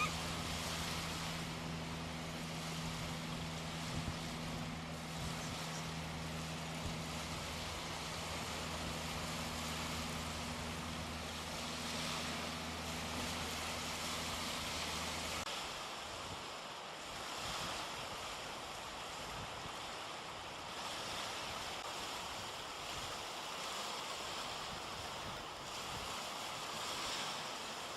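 Surf washing on the shore with wind on the microphone, a steady wash of noise. Under it a low steady hum runs through the first half and cuts off suddenly about halfway through.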